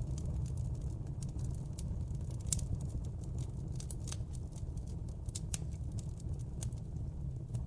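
Wood fire crackling in a fireplace: irregular sharp pops and snaps over a steady low rumble of burning, with a louder pop about two and a half seconds in and another about five and a half seconds in.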